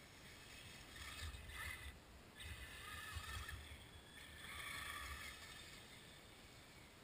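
Axial Wraith RC truck with a brushless motor driving through snow in three short bursts, its tyres churning snow with a faint motor whine.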